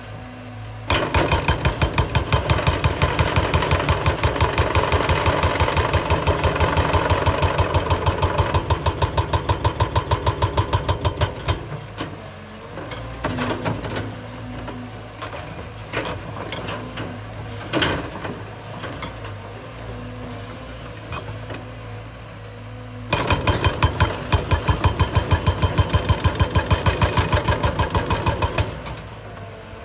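Cat hydraulic breaker hammer on a Cat 320 excavator pounding rock in a fast, even run of blows for about ten seconds. It stops, leaving the excavator's diesel engine running with a few knocks, one sharp knock among them. It starts again for about six seconds near the end.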